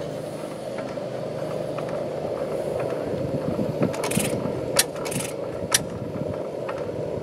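Kirkness oil engine, a small stationary engine, running with a steady mechanical clatter. A few sharp metallic clicks and short hisses stand out between about four and six seconds in.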